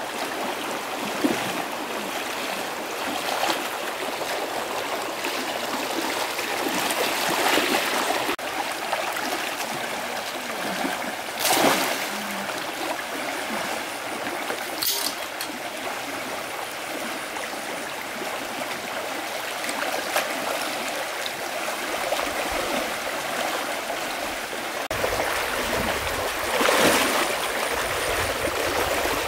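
Water of a stream running steadily, with a few brief louder swells.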